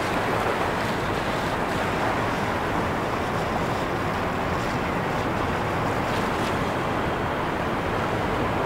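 A steady, dense wash of noise layered from recordings of waves breaking and rushing water, with a car's road noise mixed under it.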